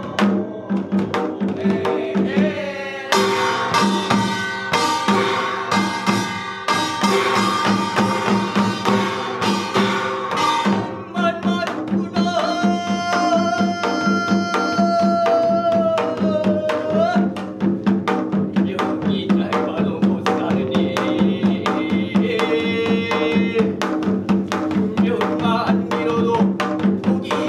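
Binari, the Korean ritual blessing song, sung by a solo voice over Korean traditional drums (janggu) keeping a fast, steady rhythm. About midway the voice holds one long note.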